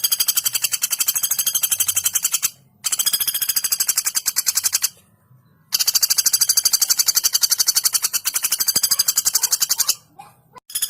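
Female common flameback woodpecker calling: long, very rapid rattling trills of evenly repeated shrill notes. The trills come in bouts of about two to four seconds with short pauses between them.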